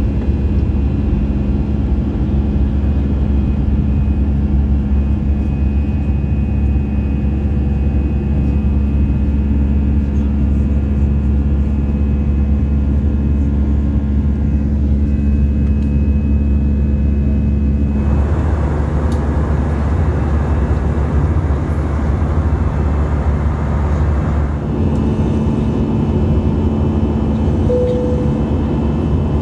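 Airbus A320 cabin noise in the climb: steady jet-engine drone and airflow rumble with a constant hum, heard from inside the cabin. About two-thirds of the way in, a brighter hiss joins for several seconds, then fades.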